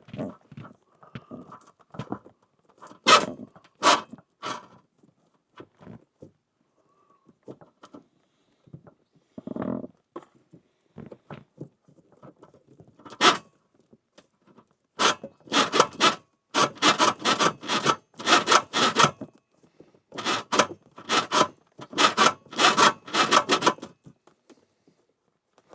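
Electrical cable being pushed and pulled through a tight passage, rubbing and scraping in short strokes. The strokes come as scattered single scrapes at first, then in quick runs of a few a second in the second half.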